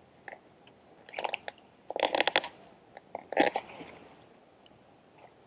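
Baitcasting rod and reel being handled during a retrieve: three short bursts of clicking and rattling from the reel and gear.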